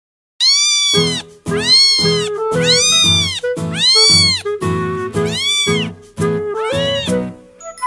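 Cat meowing over background music: a quick run of meows, each rising then falling in pitch, about one every half-second to second, over low sustained musical notes. It starts suddenly about half a second in.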